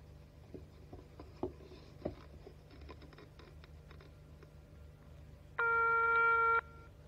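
1960s landline telephone: scattered clicks from the dial and handset over the first few seconds, then, a little over five seconds in, a single steady signal tone from the line lasting about one second.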